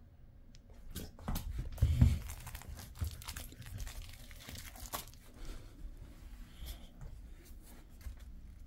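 A Jindo dog biting and mouthing a plush eggplant toy held in a hand: an irregular run of rustles, crunches and clicks, loudest about two seconds in.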